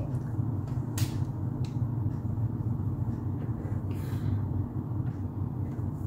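A few short clicks and knocks from felt-tip markers being handled and swapped on a tabletop, about a second in and again near four seconds, over a steady low hum.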